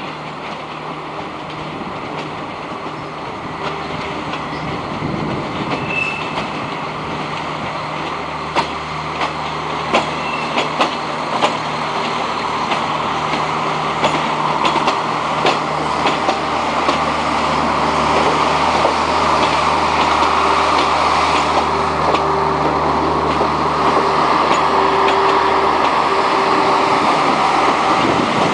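Renfe multiple unit rolling slowly past at close range, its motor hum and running noise growing louder as it approaches. In the middle, its wheels click sharply several times over rail joints and points.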